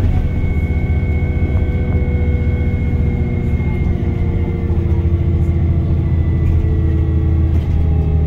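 Inside a VDL DB300 double-decker bus under way: a steady low engine rumble with the whine of its Voith automatic gearbox, the whine sinking slightly in pitch.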